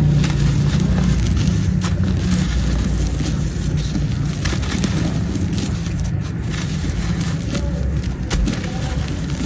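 A dry, brittle material being crushed and crumbled close to the microphone: scattered sharp crackles over a steady low rumble.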